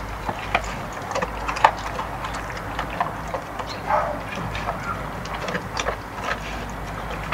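Border Collie–Rottweiler cross eating wet food from a metal bowl: irregular wet chomping and clicking, several times a second.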